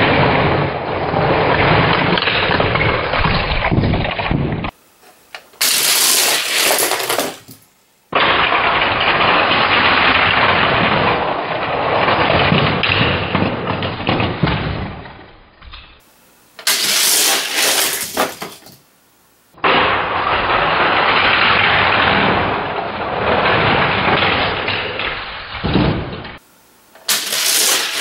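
Die-cast Hot Wheels cars running down orange plastic track and through the loop, clattering into the finish-line gate, in three runs. Each run is a long dull rattle of about seven seconds, followed by a short, sharper clatter.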